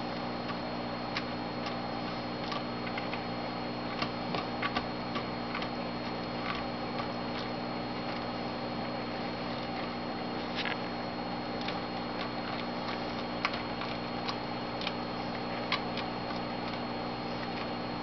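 Steady low hum with scattered light clicks and taps of a red-eared slider's shell and claws on a textured plastic basking platform while a finger scratches its back.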